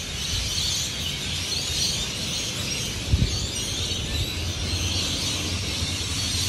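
A large flock of birds calling together in the trees, a dense, continuous high chatter, over a low rumble of street traffic. A brief low thump about three seconds in.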